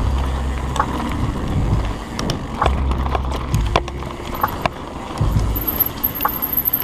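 Mountain bike rattling over a rough trail, with irregular sharp clicks and knocks from the bike. Background music with a steady low bass runs underneath.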